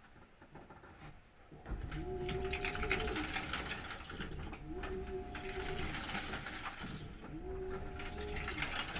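Washing machine motor agitating through its wash cycle: from about two seconds in, a hum rises to a steady pitch, holds for about a second and drops away, repeating about every two and a half to three seconds over a rushing noise.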